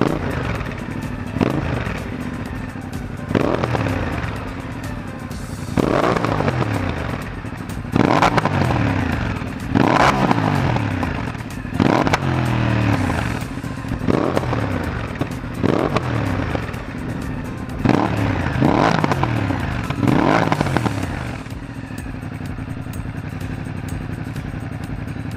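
Ducati Multistrada DVT's Testastretta V-twin revved in repeated throttle blips through a Mivv Speed Edge silencer with its dB killer fitted. The revs rise sharply about every two seconds and fall back each time, settling to a steady idle near the end.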